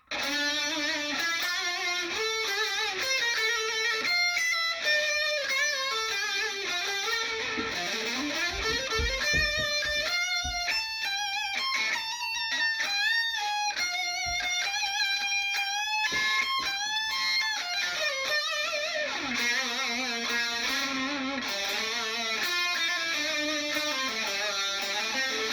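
Epiphone SG Modern Figured electric guitar played through an amp: single-note lead lines with string bends, slides and vibrato.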